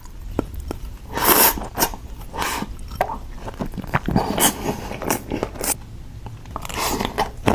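A person chewing and biting food close to the microphone: irregular wet eating sounds.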